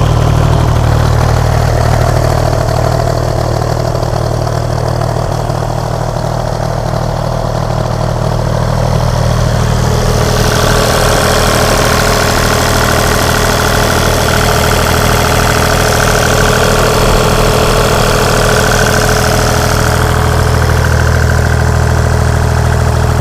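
1976 White 1270 tractor's diesel engine running steadily just after a cold start on its rebuilt starter. About halfway through, a higher steady whine and more hiss join the low engine note.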